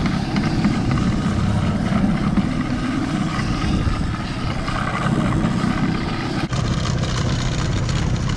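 Evinrude 48 two-stroke outboard motor running steadily, with wind rumbling on the microphone. The sound changes abruptly about six and a half seconds in.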